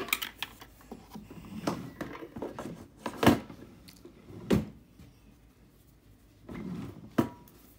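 Small hard objects handled and set down on a desk: a few sharp knocks and clicks with faint rustling between them. The loudest knock comes about three seconds in and another a second later.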